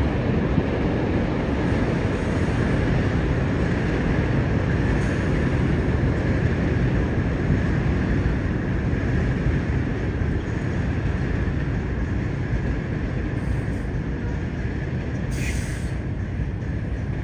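Subway train moving slowly through a rail yard: a steady low rumble, with a short high hiss near the end.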